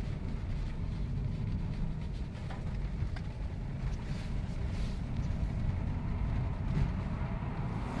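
Inside the cabin of a Subaru Impreza STI driving on a snow and ice track: a steady low rumble of its turbocharged flat-four engine mixed with tyre and road noise.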